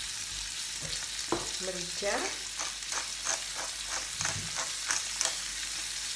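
Scallops sizzling steadily in hot oil in a small stainless steel frying pan. From about two seconds in, a pepper mill is twisted over them, with short grinding clicks about three a second for some three seconds.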